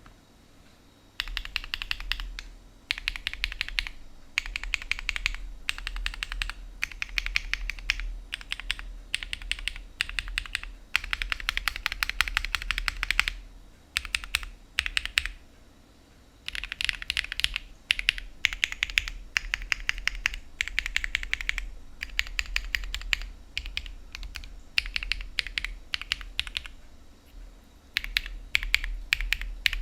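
Typing on a Jris75 mechanical keyboard fitted with Bsun x KeysU Bunny linear switches: rapid runs of keystrokes in bursts of a second or two, with short pauses between them.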